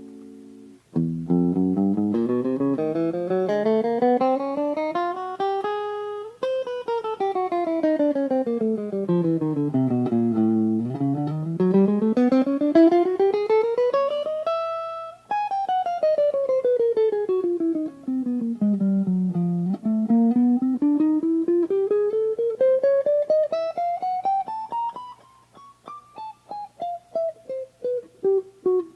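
Fernandes FR-75-3S electric guitar played as a fast run of rapidly repeated notes that sweeps up and down the neck several times, over a low note droning underneath. Near the end the notes come apart into separate, spaced-out plucks sliding down in pitch.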